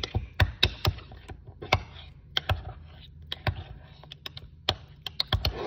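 A spoon stirring hot chocolate in a mug, clinking against the sides in quick, irregular taps that bunch up at the start and again near the end.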